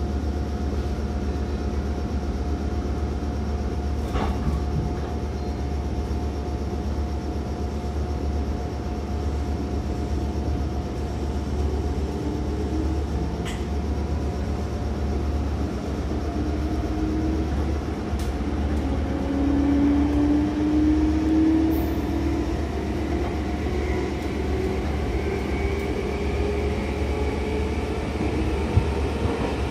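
Meitetsu 5000 series electric commuter train heard from on board: a steady low hum while it stands, a few clicks, then it pulls away, its traction motors giving a whine that climbs slowly in pitch as it gathers speed.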